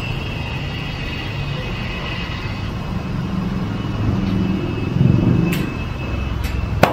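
Low vehicle rumble that swells about four to five seconds in, with a sharp click just before the end.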